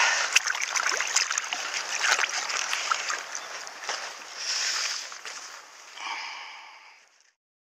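Shallow river water splashing at the bank, with small clicks and knocks of hands and a measuring board being handled in it. Near the end a short pitched sound plays, and then the sound cuts off suddenly.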